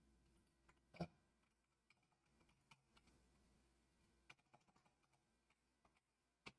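A few faint, sparse keystrokes on a computer keyboard as a search is typed, the plainest tap about a second in, otherwise near silence.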